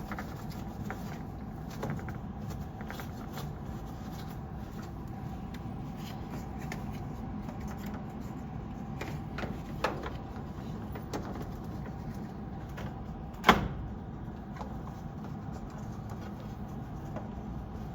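Steady hum of a running forced-air furnace, with a few light knocks and clicks from the humidifier's parts being handled; the sharpest knock comes about three-quarters of the way through.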